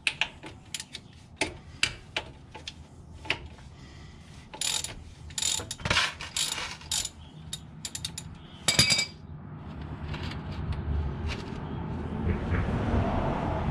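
A ratchet wrench clicking in short runs with metal tool knocks while a transaxle drain or fill plug is unscrewed with a 17 mm hex bit. A steady rushing noise builds over the last few seconds.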